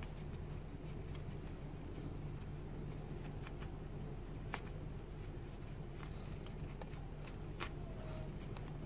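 Faint rustling of cotton fabric and a few small clicks as a stitched bow-tie piece is turned right side out with a pen, over a steady low hum.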